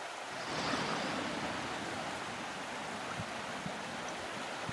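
Steady rush of a mountain stream, with a few faint footsteps on loose rock.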